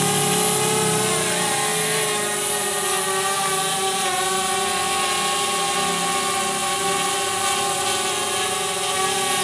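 DJI Spark drone's small propellers and motors whining steadily as it climbs and hovers close by. The propellers are aftermarket (KW) ones, and the drone is flying normally. The pitch wavers slightly in the first couple of seconds, then holds steady.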